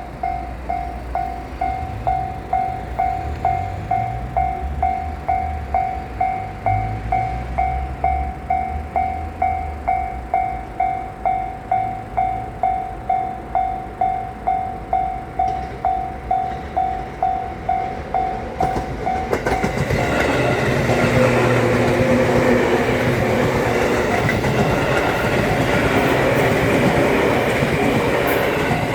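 Level-crossing warning bell ringing about twice a second over the low rumble of an approaching freight train. About twenty seconds in, the freight train passes over the crossing, and the loud clatter of its wagons' wheels on the rails drowns out the bell.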